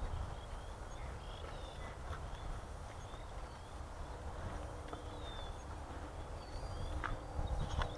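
Quiet outdoor ambience: small birds chirping with short, repeated downward notes over a low wind rumble, with a few faint clicks near the end.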